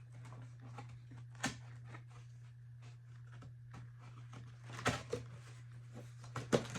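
A cardboard shipping box being opened and its packaging handled: scattered rustles and light clicks, with sharper knocks about a second and a half in and a few more near the end, over a steady low hum.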